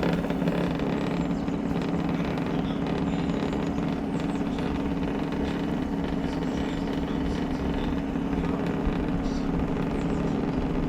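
High-pressure washer's plunger pump unit running steadily, a constant low mechanical hum.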